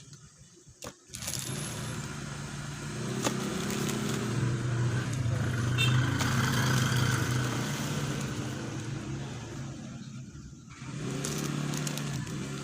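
Vinyl cutting plotter running a cut, its motors whirring with shifting tones as the carriage and roller move. It starts about a second in, breaks off briefly near the end, then starts again.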